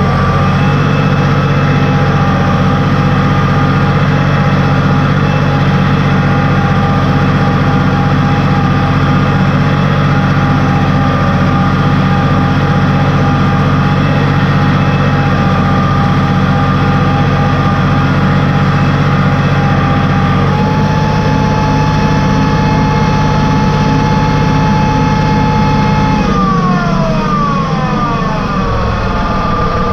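Tractor engine running steadily while pulling a three-point mounted moldboard plow through the soil. Its pitch shifts slightly about two-thirds of the way through, then falls near the end as the engine slows.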